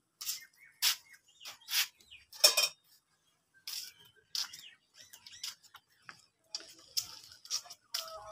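Stainless-steel pots and bowls clinking as they are carried, with footsteps and scattered sharp knocks; birds chirp now and then.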